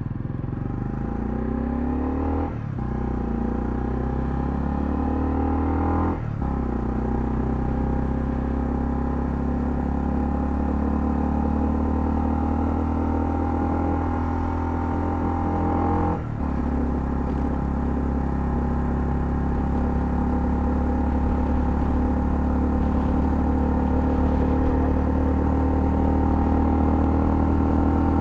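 Honda CL250's single-cylinder engine pulling away and accelerating, its pitch rising through the gears with three upshifts about two and a half, six and sixteen seconds in, then running steadily at cruising speed.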